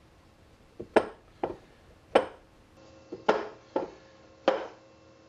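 Steel tap handles and die stocks of a Wells Brothers Little Giant tap and die set knocking and clinking as they are set into their fitted wooden case: about eight sharp knocks, two of them ringing briefly.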